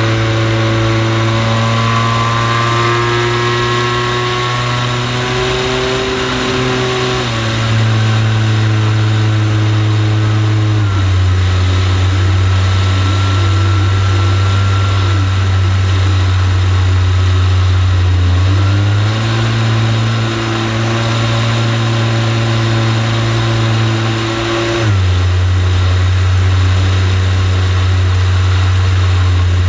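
RC T-28 model plane's motor and propeller heard from on board: a loud, steady drone whose pitch drops and rises several times as the throttle is changed.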